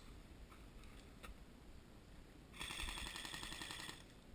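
Airsoft electric gun (AEG) firing a rapid full-auto burst of about a second and a half, starting a little over two seconds in.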